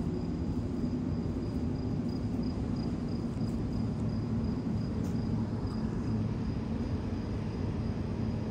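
Steady low mechanical hum and rumble, with a faint, thin high-pitched chirr pulsing slightly on top.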